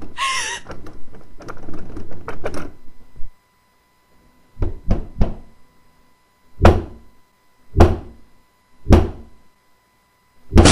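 Foley of a barricaded bedroom door being forced. It starts with rattling and creaking, then comes a short gap and a few quick knocks. Three heavy slams follow about a second apart, and a loud crash at the end as the door gives way.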